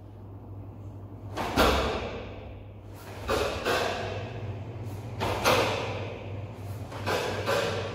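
A karateka's kata techniques: sharp snaps of the karate gi with thuds of bare feet on foam mats, about seven in all, several in quick pairs, each with a short echo, over a steady low hum.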